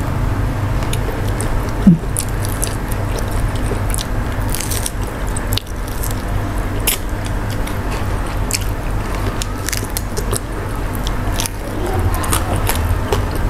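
Close-miked eating sounds of biting and chewing a small fried mujair (tilapia) fish, with many short, sharp crunches and clicks scattered throughout.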